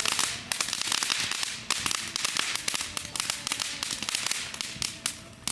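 Firework going off with a fast, irregular run of sharp cracks and pops, thinning out near the end.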